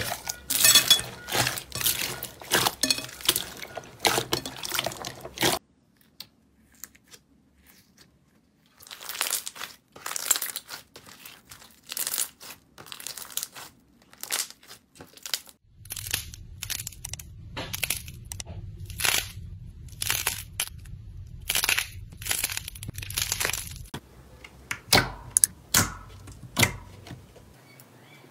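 Hands squishing and squeezing slime, giving runs of crunchy crackling and popping clicks; in the first part the slime is mixed with foam beads. The crackling stops for a few seconds after about five seconds, then starts again, with a low hum under the later part.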